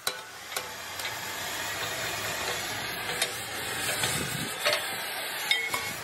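Oxy-fuel cutting torch hissing steadily against the steel of an excavator bucket, with sharp hammer strikes on the steel at irregular intervals, about six in all.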